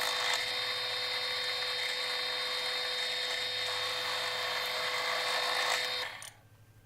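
Bench drill press running steadily, boring holes through a plywood strip; it stops abruptly about six seconds in.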